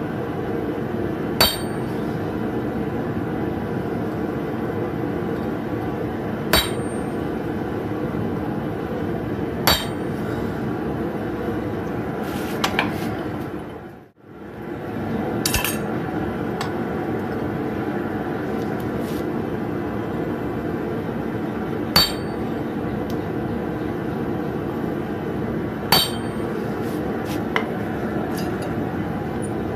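Hammer blows on a steel anvil while forging a hot nail: about eight single sharp strikes spread out, each with a brief metallic ring, over a steady rushing background noise. The sound fades out and back in about halfway through.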